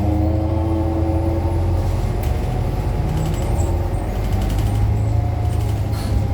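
A 2018 New Flyer XDE60 diesel-electric hybrid articulated bus running, heard from inside: a steady low hum with several held tones above it. This is the odd drive sound that sets this bus apart from others of its model.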